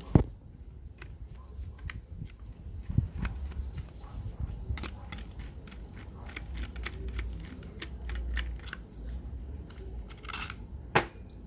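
Scattered clicks and light taps of a screwdriver and small metal parts being handled while the two field-coil screws of a 4½-inch angle grinder are taken out. There are sharp knocks just after the start, about three seconds in, and near the end.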